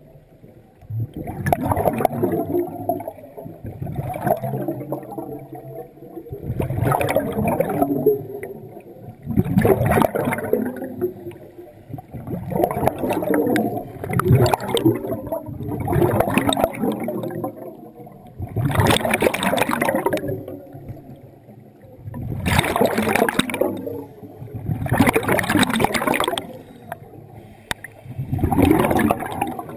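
Scuba diver breathing underwater through a regulator: a rush of exhaled bubbles about every three seconds, around ten breaths in all, with quieter gaps between them.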